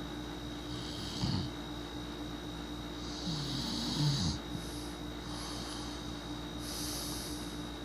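A sleeping person snoring: noisy breaths in and out, with low snores about a second in and again from about three to four seconds in.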